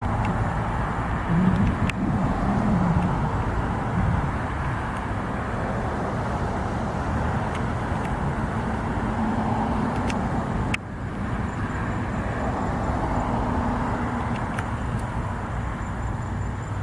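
Steady outdoor background rumble and hiss, like distant road traffic, with a faint click now and then and no thunder.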